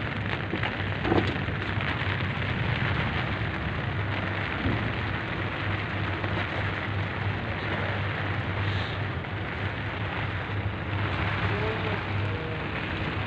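Sandstorm heard from inside a canvas tent: steady wind noise with blown sand pattering against the tent fabric, over a low steady hum.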